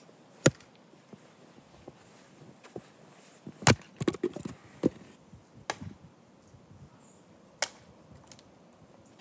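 Axe chopping firewood on a wooden chopping block, in separate sharp blows. There is one hard strike about half a second in, a heavier blow near four seconds followed by a quick run of smaller knocks, and two more single strikes later.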